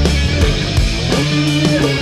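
Loud rock music with electric guitar.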